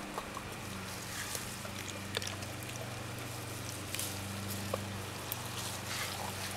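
Two Rhodesian Ridgebacks picking gooseberries off a bush and chewing them, heard as scattered sharp crunches and clicks with leaves rustling, over a steady low hum.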